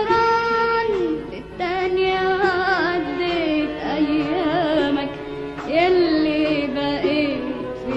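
Early-1950s studio recording of an Arabic song: a wavering, heavily ornamented melody with quick trills over accompaniment.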